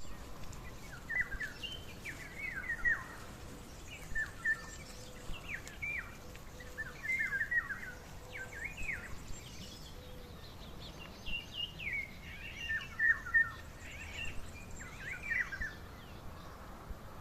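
Wild birds singing outdoors, a run of short, quick chirping phrases repeated throughout over a faint steady background.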